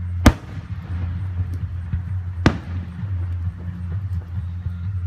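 Aerial fireworks shells bursting: two sharp bangs about two seconds apart, over a steady low hum.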